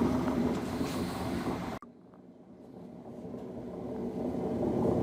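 Beko D5 7101 washing machine spinning with a rough, vehicle-like rumble: the noisy spin of worn drum bearings. The sound drops out abruptly about two seconds in, then builds back up steadily.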